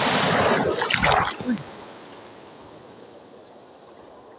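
Seawater rushing and splashing close to the microphone, loud for about the first second and a half, then dying down to a steady, quieter wash of surf.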